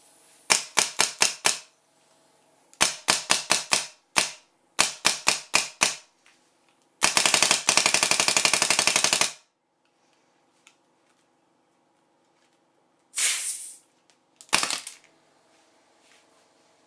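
Planet Eclipse electronic paintball marker firing through a Muffler Kit indoor test barrel, making sharp pops. There are quick strings of about five or six shots, a single shot, then a rapid continuous string of about two seconds, and two short bursts near the end.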